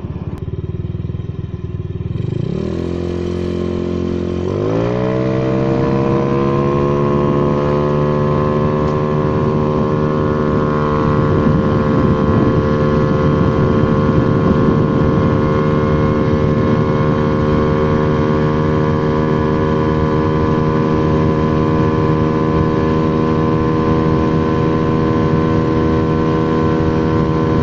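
Bored-up Honda Vario 110 carburettor scooter's single-cylinder engine at full throttle. The revs climb sharply twice in the first five seconds, then settle to a steady high pitch that creeps slowly upward as the automatic transmission holds the revs and the speed builds toward about 115 km/h.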